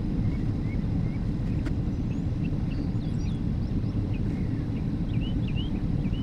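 Wind rumbling steadily on the microphone, with small birds chirping on and off above it and a single faint click near the start.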